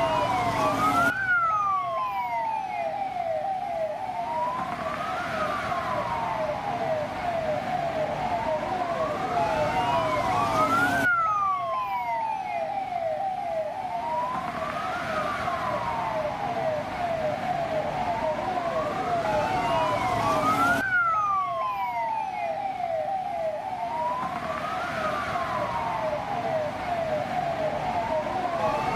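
Police siren sound effect: a slow wail rising and falling about every five seconds, layered over a rapid yelp of short repeated chirps. The recording is looped, restarting abruptly about every ten seconds.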